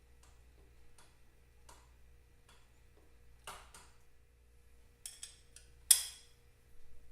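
Light metal clicks and taps from hand tools and small parts being handled, coming every half second or so. A few sharper metallic clinks follow about five seconds in, the loudest near six seconds.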